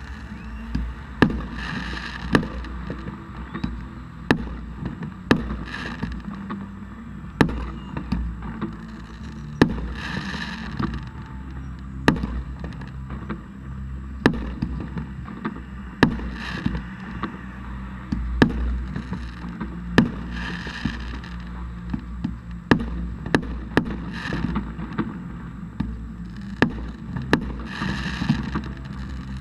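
Fireworks display: a string of sharp bangs from bursting shells every second or two, with hissing bursts about every four seconds.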